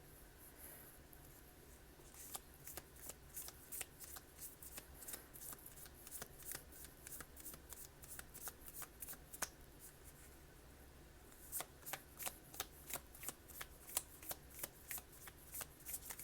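A deck of oracle cards being shuffled by hand: sharp card slaps about two a second, starting about two seconds in, pausing briefly near the middle, then coming faster toward the end.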